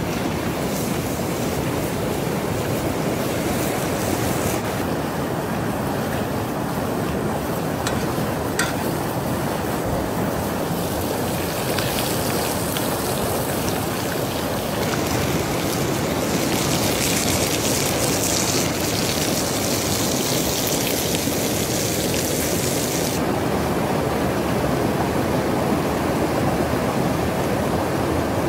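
A fast river rushing steadily, with steak sizzling in a cast-iron skillet over a wood fire. The hiss changes abruptly several times and is brightest for several seconds just past the middle.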